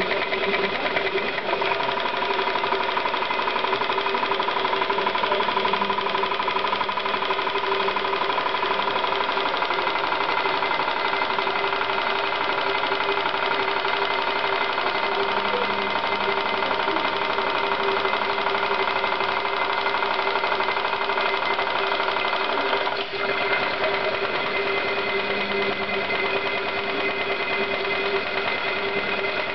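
Stuart D10 twin-cylinder model marine steam engine running on its first run-in, a steady mechanical clatter from its cranks and Stephenson link valve gear. The sound dips briefly about two-thirds of the way through.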